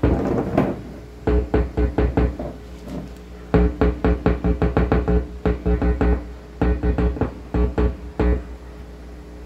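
Music of quick plucked guitar-like notes with bass, in short rhythmic runs broken by brief pauses.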